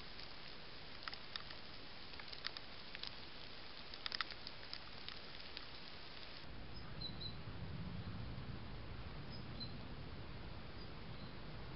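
Trail camera's steady hiss with scattered faint clicks and crackles. About six seconds in, the sound changes abruptly to a low rumble with a few faint high chirps.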